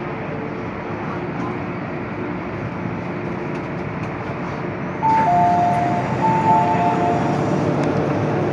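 MTR M-Train electric multiple unit easing into the platform with a steady running rumble and faint hum. About five seconds in the noise jumps as the doors open, and a two-tone door chime, high then low, sounds twice.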